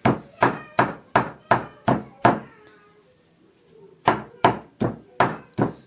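Cleaver chopping raw meat on a wooden chopping block, mincing it with steady strokes about three a second, each with a short ringing note. About two and a half seconds in, the chopping pauses for under two seconds, then resumes.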